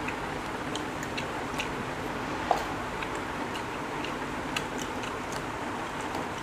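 Close-up eating sounds: small wet clicks and smacks of chewing and of fingers pulling apart jackfruit bulbs and toast, coming unevenly two or three times a second over a steady hiss, with one slightly louder click about halfway through.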